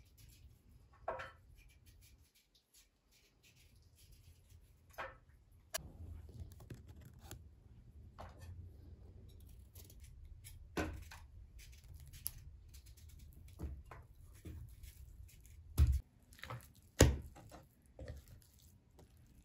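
Food being cut by hand: scattered light knife clicks and scrapes, then two loud cleaver strikes on a wooden cutting board about a second apart near the end.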